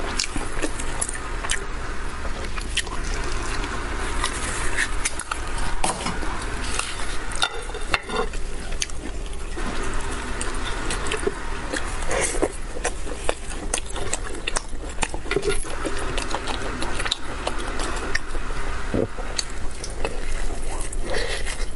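Braised spicy pork elbow torn apart by gloved hands: wet, sticky squelching and tearing of the soft skin and meat, full of small wet clicks, with close-up chewing near the end.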